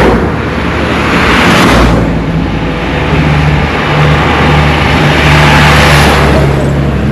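Motor vehicles passing close by on an asphalt road: a steady low engine hum, with the noise swelling and fading twice, about two seconds in and again near six seconds.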